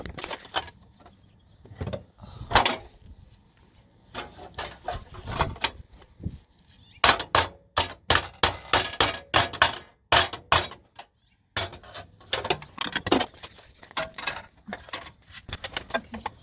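Irregular clicking, knocking and rattling of hand work with tools and parts, with a brief pause just past the middle.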